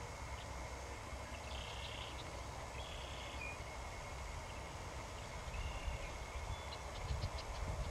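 Birds calling in the open: three short, high, buzzy calls spread over the first six seconds, then a quick run of chirps near the end. Under them runs a low rumble that grows stronger about five seconds in.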